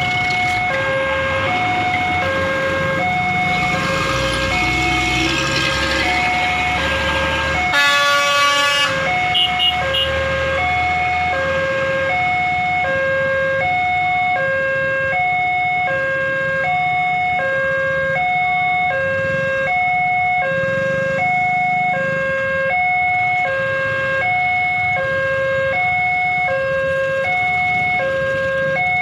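Electronic warning alarm of a railway level crossing sounding as the barriers are down: two tones, one low and one higher, alternating evenly about once a second, over a faint steady high tone. Road traffic runs underneath, and a brief horn blast sounds about eight seconds in.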